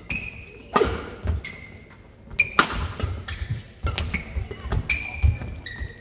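Badminton rally: sharp racket hits on the shuttlecock at an uneven pace, along with short high squeaks of shoes and heavy footfalls on the sports-hall court floor.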